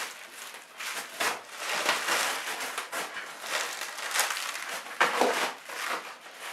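Bubble wrap and plastic packing crinkling and rustling as it is pulled out of a cardboard box, in a run of uneven rustles.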